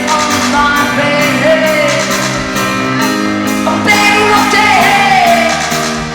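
Rock band playing live over a steady drum beat, with a woman singing long, gliding notes.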